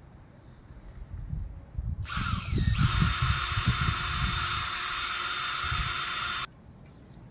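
Power drill running: it spins up about two seconds in, holds a steady whine for about four seconds, then stops suddenly.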